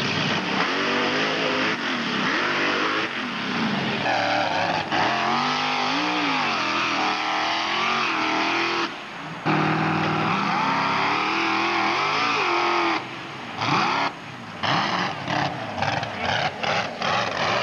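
Mud-racing vehicle's engine revving hard, its pitch rising and falling again and again. The sound drops off abruptly for a moment about nine seconds in and again around thirteen seconds, then chops rapidly on and off near the end.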